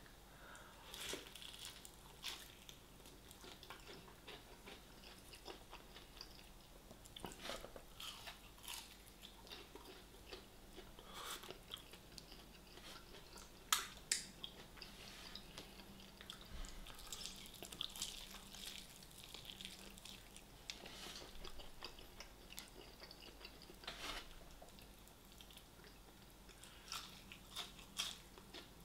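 A person chewing and eating close to the microphone: faint, scattered wet mouth clicks and smacks, with one sharper click about halfway through.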